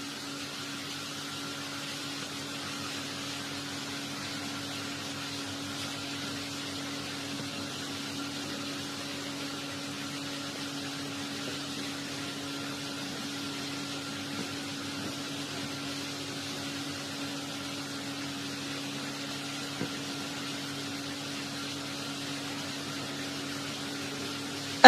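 A steady hum made of a few fixed tones, with a faint hiss behind it, unchanging throughout.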